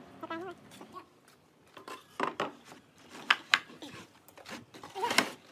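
Wooden boards knocking and clacking against each other and on a wooden workbench as they are laid out, in a string of separate sharp knocks.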